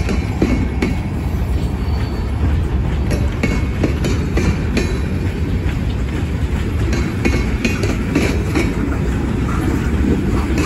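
Freight cars of a CSX train rolling past: a steady rumble of wheels on rail, with clicking over rail joints and short high-pitched squeaks from the wheels now and then.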